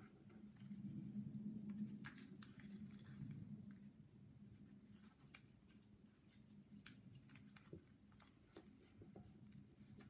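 Faint, crisp crinkles and ticks of small origami paper being creased and pinched between fingertips, coming at irregular moments.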